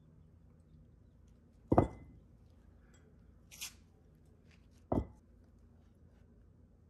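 Two heavy metal hex dumbbells set down one after the other on a concrete floor: two loud thuds with a brief ring, about three seconds apart. A short, faint hiss comes between them.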